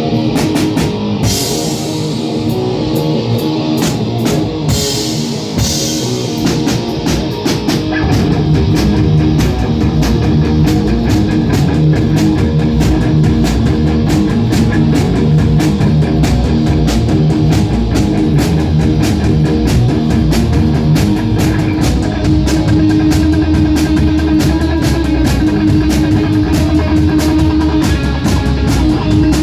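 Live rock band playing an instrumental passage on electric guitar, bass and drum kit. It opens sparser with cymbal crashes, and the full band comes in louder about eight seconds in.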